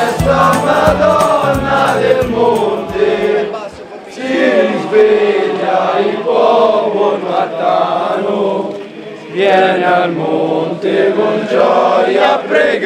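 A group of men singing a devotional chant together in loud sung phrases, with short breaks about four and nine seconds in.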